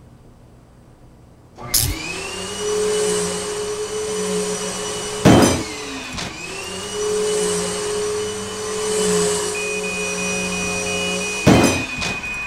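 Upright vacuum cleaner switching on about two seconds in with a rising whine, then running steadily. A loud bang comes about five seconds in, after which the motor sags and winds back up, and another bang comes near the end, with a steady high-pitched tone over the last few seconds. The vacuum is overheating and smoking.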